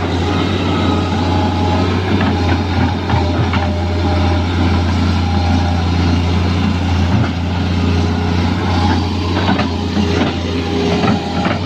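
Excavator's diesel engine running steadily, with a few short knocks now and then.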